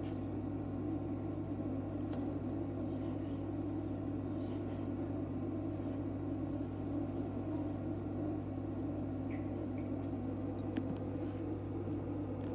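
Room tone of a large hall: a steady low electrical hum under the faint rustle of a crowd of young children, with a few small clicks.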